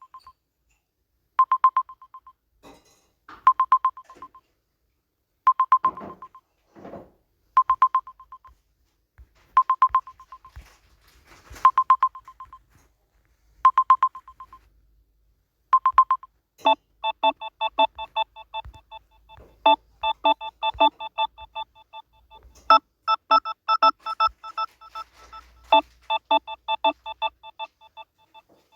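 Samsung Galaxy A21s ringtones playing. First comes a short electronic tone that repeats about every two seconds. After a short gap a different ringtone starts: rapid beeps sounding several pitches at once, like telephone dialing tones.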